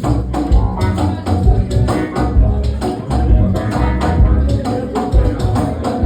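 Band music with a steady drum beat and a strong bass line, no singing.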